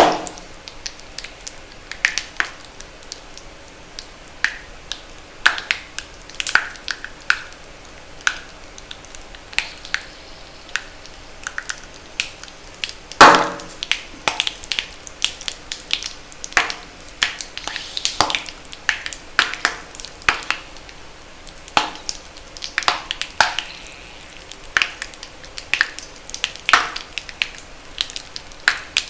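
Reformed magnesium carbonate chalk (pure powder mixed with water and dried) being crushed, giving irregular sharp pops and crackles, with one louder, fuller crunch about 13 seconds in.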